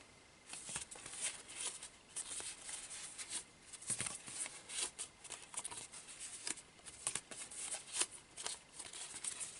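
Paper rustling and crackling in short, irregular bursts as a scored sheet is folded along its diagonal score lines into mountain folds.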